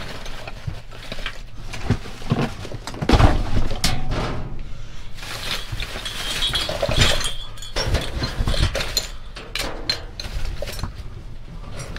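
Rummaging through trash in a dumpster: objects knocking and clattering against each other, with rustling and glassy clinks, and heavier thuds about three seconds in and again near the middle.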